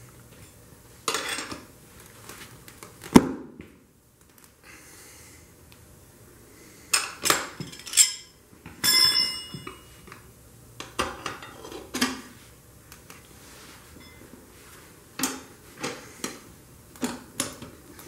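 Steel tire spoons clinking and scraping against a motorcycle wheel rim as a very tight tire bead is levered on in small bites. Irregular clusters of metal clinks, with one sharp strike about three seconds in and a ringing clang around nine seconds.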